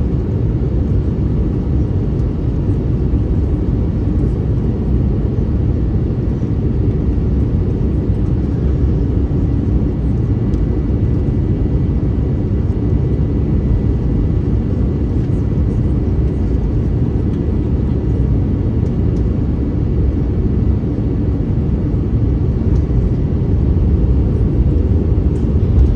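Steady, loud cabin noise inside an Airbus A321neo airliner: an even low rumble of the engines and air.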